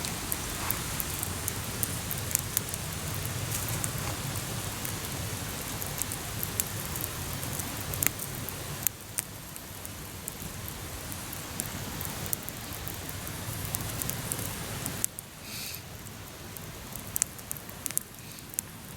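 Campfire crackling: a steady hiss with frequent sharp pops and snaps, dropping somewhat in level about nine seconds in and again about fifteen seconds in.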